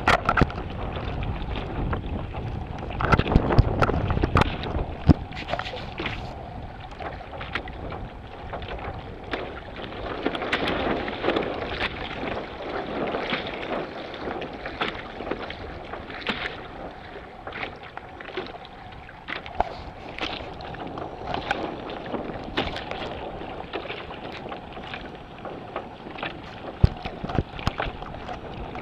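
Choppy lake water slapping and splashing against the hull of a small boat, with gusts of wind buffeting the microphone, heaviest a few seconds in.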